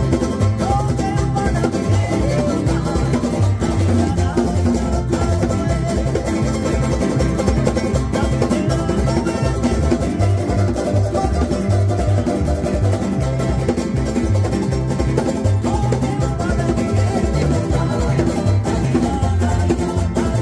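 Tahitian string band music: several ukuleles and a guitar strummed in a quick, steady rhythm over a pulsing bass line, with a man singing along.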